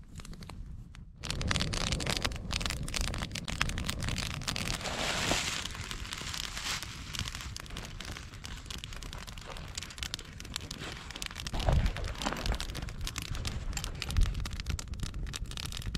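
Handling noise from a nylon backpack and a fabric carry bag: rustling fabric and many small irregular clicks, with two louder knocks in the second half.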